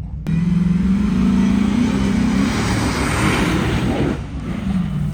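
A motor vehicle's engine suddenly revving hard, its note climbing slightly, with a loud rushing hiss over it; it eases off after about four seconds and keeps running lower.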